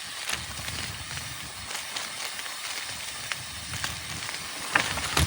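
Mountain bike rolling across a floating bridge: a steady rushing of tyres and air, with scattered light clicks and a sharper knock near the end.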